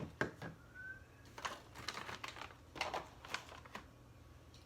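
A few light knocks and rattles of containers being handled while making a smoothie, with a brief high squeak about a second in.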